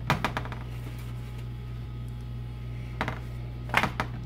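A hand patting and shifting a flour tortilla in a nonstick frying pan: a few short bunches of soft taps and rustles, the loudest near the end, over a steady low hum.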